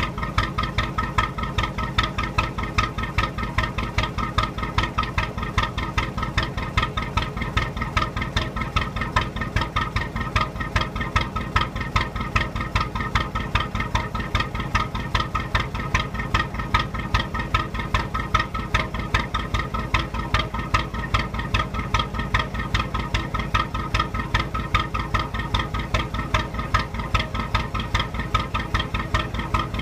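National 2DM two-cylinder diesel engine of a narrowboat running steadily under way, with an even, rapid beat of exhaust pulses.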